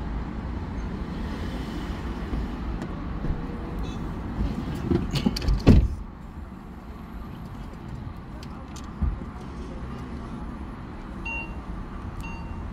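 Car driving with a steady low road rumble. A brief burst of knocking and clatter comes about five to six seconds in, and near the end a short electronic beep repeats about once a second.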